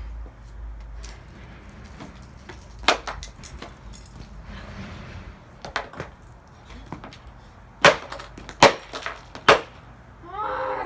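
Hammer blows on the hard plastic pieces of a smashed alarm clock radio: about half a dozen sharp hits, spaced out at first and closer together near the end.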